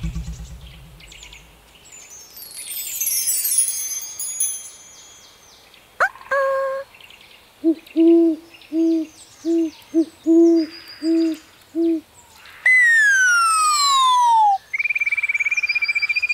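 An owl hooting, about eight short hoots evenly spaced over four seconds, set among cartoon sound effects: fast descending chirps early on and a long falling whistle after the hoots.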